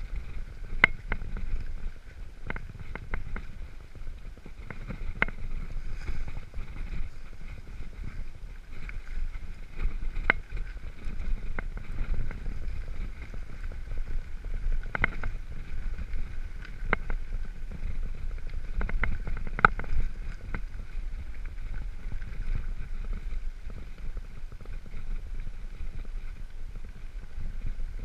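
Mountain bike riding down a rough dirt singletrack: a steady low rumble of wind on the microphone and tyres on the ground, with frequent sharp rattles and knocks from the bike jolting over bumps.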